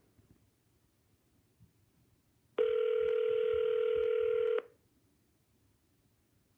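Telephone ringback tone heard through a speakerphone: a single two-second ring, a steady low tone, starting about two and a half seconds in. This is the line ringing on a transferred call that nobody picks up. Near silence before and after the ring.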